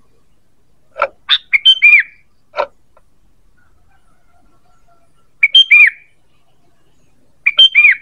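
Sooty-headed bulbul (kutilang) calling: three short phrases of quick whistled notes, about a second in, a little past halfway and near the end, each ending in an arching note.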